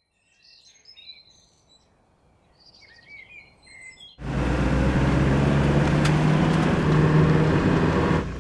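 Small birds chirping faintly. About four seconds in, this gives way abruptly to loud, steady car engine and road noise heard from inside a moving car, which eases off slightly near the end.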